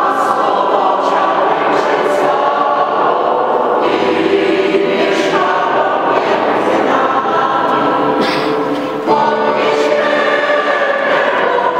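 Mixed choir of women's and men's voices singing a Christmas carol in long held chords, with a short break between phrases about nine seconds in.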